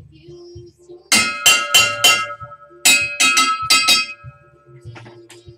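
A hammer striking steel in two quick runs of four blows about a second apart, each blow leaving a ringing metallic tone.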